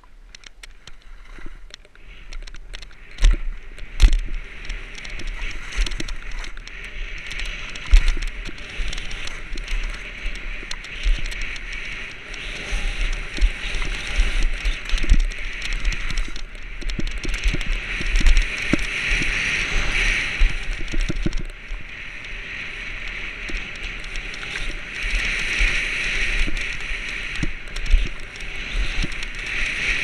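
Skis sliding and scraping over snow at speed, with wind rushing over the camera microphone and frequent sharp knocks and thumps from bumps in the terrain; the rush swells louder a few times.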